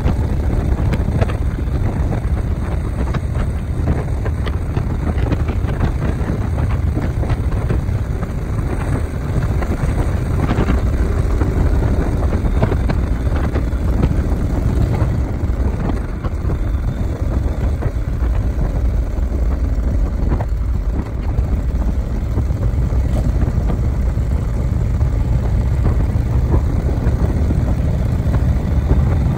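A vehicle driving along: a steady low engine and road rumble with wind noise over it.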